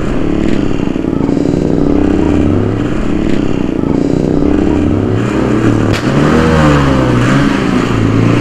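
A 100 cc single-cylinder motorcycle engine, a Hero Splendor, heard from the saddle as the rider works the throttle: the engine note rises and falls. A sharp pop from the exhaust comes about six seconds in.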